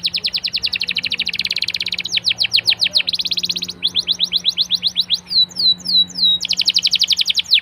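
Domestic canary singing a continuous rolling song: runs of rapid falling notes, switching between faster and slower tours, with a short stretch of slower swooping notes about two-thirds of the way through.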